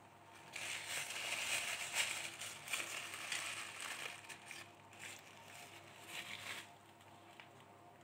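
A week-old Indian ringneck parakeet chick making harsh, hissy food-begging calls while being hand-fed: a run of about four seconds, then a shorter burst a little later.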